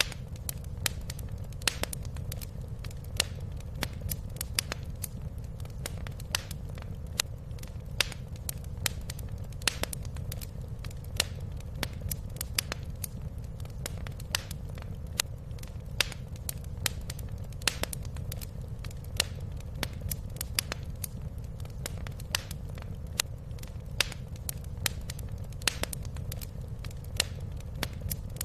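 Wood fire crackling in a fireplace: irregular sharp pops and snaps, several a second, over a steady low rumble of the burning fire.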